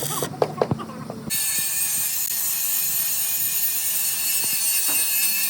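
A few sharp metal taps, then about a second in a loud, steady, high-pitched grinding hiss with a whine starts abruptly: an angle grinder running on steel.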